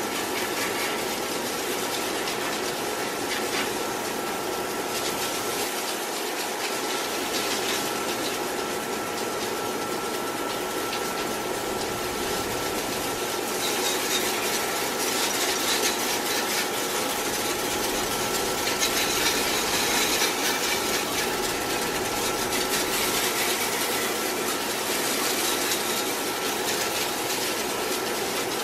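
Water hissing from a hose onto a metal wire dog crate and concrete, over a steady machine hum. The spray grows louder through the middle, then eases off.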